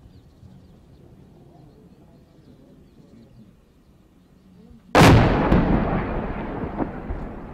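A single loud artillery blast about five seconds in, sudden, followed by a long rumbling echo that fades over two to three seconds, after quiet outdoor background.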